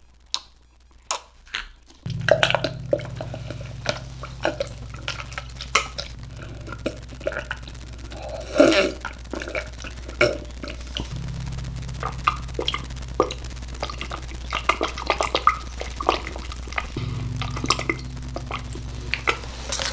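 Drinking a soda straight from the cup without a straw: a string of gulps, swallows and mouth noises. A steady low hum starts about two seconds in and runs underneath.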